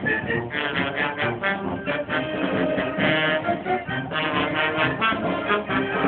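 Brass band music, several brass instruments playing together in quick, short notes.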